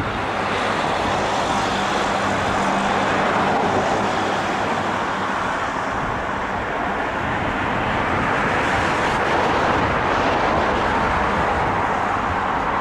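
Road traffic going past on a town street: a steady wash of tyre and engine noise, with a low engine hum in the first few seconds.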